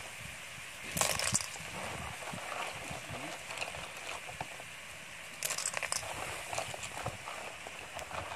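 Seashells sautéing in a wok over a grill fire: a steady sizzle with fine crackling, broken by a short clatter about a second in and another around five and a half seconds.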